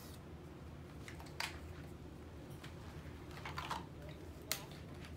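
Short puffs of breath blown through a metal straw, pushing wet ink across a plastic sheet: one at about a second and a half in and a longer one near the end, then a sharp click. A steady low hum sits underneath.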